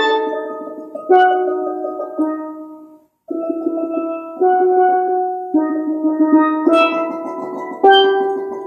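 Steelpan played solo: held, ringing chords with a freshly struck attack about once a second. The playing breaks off for a moment about three seconds in, then resumes with fuller chords.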